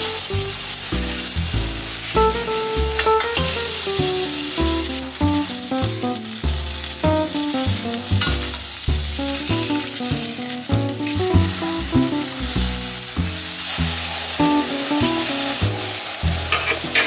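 Ground beef-and-pork burger patty sizzling steadily in hot olive oil in a frying pan, with background music playing underneath.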